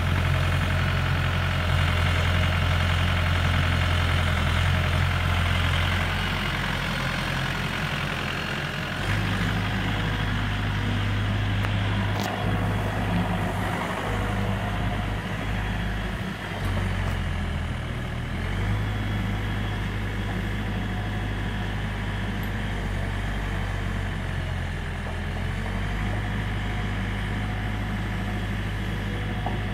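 The 2001 Neuson 8002 RDV mini excavator's Yanmar 4TNE98 four-cylinder diesel engine running steadily while the boom and bucket are worked. The engine note shifts several times as the arm moves.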